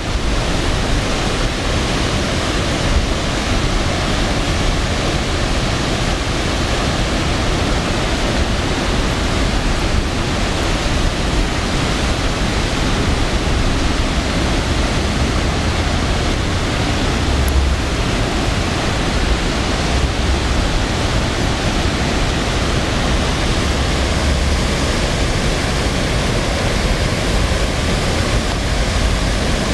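Steady, loud rush of a fast mountain river running over gravel and rapids, with a few brief low rumbles partway through.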